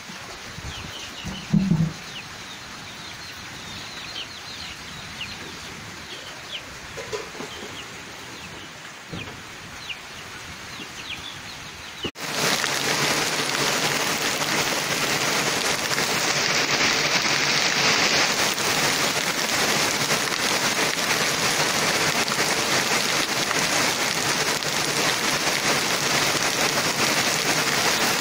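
Birds chirping and chickens clucking, then, after a sudden cut about twelve seconds in, heavy rain falling steadily and more loudly.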